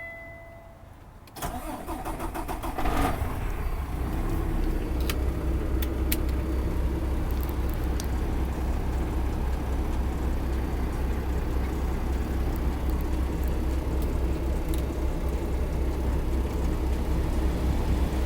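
A brief electronic dash chime, then the PACCAR MX-13 diesel inline-six of a 2019 Kenworth T680 cranks for about a second and a half, catches, and settles into a steady idle.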